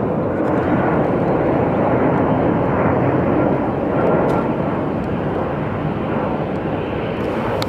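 Boeing 767-200 freighter's twin turbofan engines: a steady, loud rush of jet noise as the aircraft passes low on approach with its landing gear extended, easing slightly in the last few seconds.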